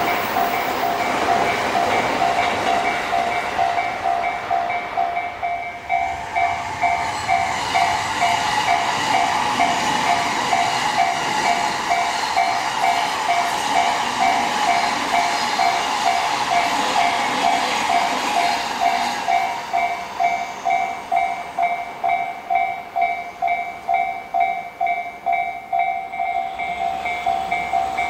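Japanese railway level-crossing alarm ringing in a steady, evenly repeating electronic ding while a train passes over the crossing. The train noise dies away about two-thirds of the way through, leaving the alarm ringing on.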